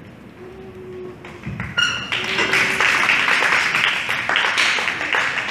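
Audience clapping, many hands at once, starting about two seconds in just after a brief ringing ping.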